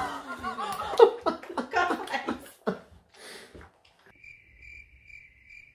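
Voices and laughter for the first two or three seconds. Then, about four seconds in, a steady high pulsing chirp like crickets starts and cuts off abruptly a couple of seconds later.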